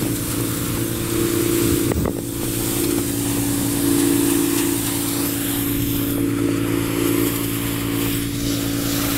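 Pressure washer running steadily: an engine drone under the hiss of the high-pressure spray on brick pavers, with a short knock about two seconds in.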